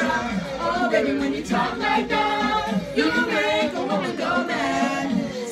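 A group of voices singing together.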